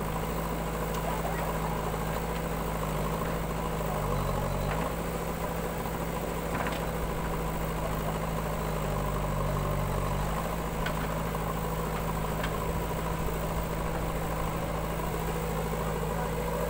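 Diesel engines of a JCB backhoe loader and a farm tractor running at idle, a steady low hum. The engine note rises briefly twice, about four and about nine seconds in, as the backhoe works its digging arm.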